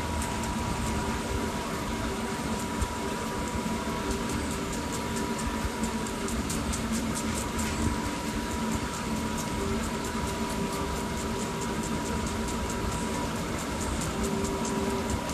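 Baby goat suckling from a bottle nipple: a run of small quick clicks, several a second, over a steady hum.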